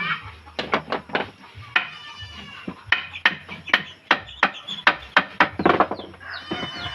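Hammer blows on wood, about a dozen sharp strikes at irregular spacing, several with a brief metallic ring like a nail being driven.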